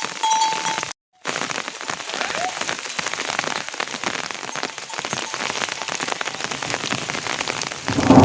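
Steady rain, a dense patter of drops, broken by a brief silent cut about a second in. Near the end a loud low rumble of thunder begins.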